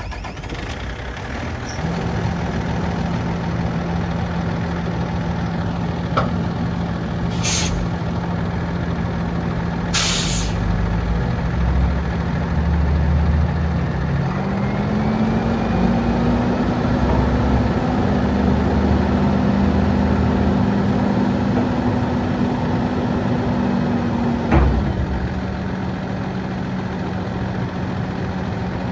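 2009 Peterbilt 335 dump truck's diesel engine idling steadily, with two short hisses of air about 7 and 10 seconds in. About 14 seconds in the engine speeds up to a higher steady speed while the hydraulic hoist raises the dump bed, then drops back to idle with a sharp click about ten seconds later.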